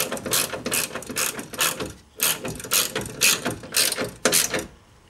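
Ratchet wrench worked back and forth in quick strokes, about two a second, clicking as it tightens the bolts that hold a car window regulator inside the door. There is a short pause near two seconds in, and the clicking stops shortly before the end.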